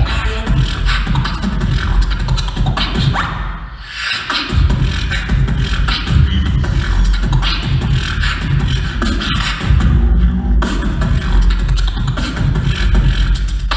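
Solo beatboxer performing into a handheld microphone, making a continuous beat with heavy bass. The beat drops out briefly about four seconds in.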